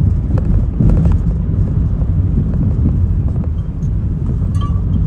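Steady low rumble of a car's engine and tyres, heard from inside the moving car, with a few light knocks or bumps about a second in.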